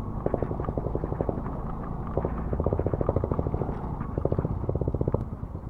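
Motorcycle engines running at low speed over a rough gravel lane, a quick, even beat of exhaust pulses over a low rumble, heard from the rider's seat.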